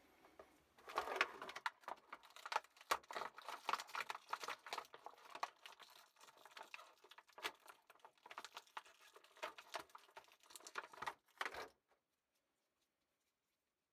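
Plastic packaging being handled: crinkling and rustling with many small clicks and taps. It cuts off abruptly about twelve seconds in.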